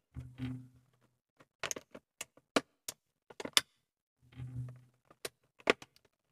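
Small plastic action-figure accessories clicking and tapping against each other and a tabletop as they are handled: about a dozen sharp clicks at irregular intervals, with two brief low hums.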